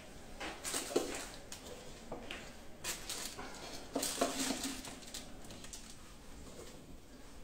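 A spatula scraping and tapping against a stainless steel mixing bowl while marshmallow mass is scooped out. Scattered short clicks and knocks, busiest about a second in and again about four seconds in.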